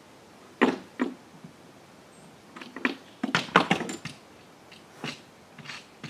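Knocks and clatters from handling the board box on a small car trailer: two knocks in the first second, a busy cluster of them between about two and a half and four seconds, then a few lighter knocks.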